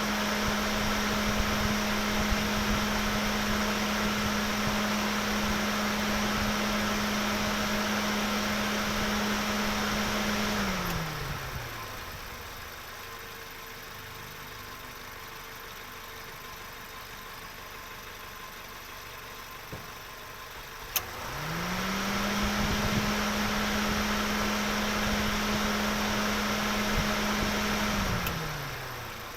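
Car engine held at steady revs with a constant drone, then easing down to a quieter idle about ten seconds in. Just after a click around twenty seconds it revs back up to the same steady pitch, holds, and winds down again near the end.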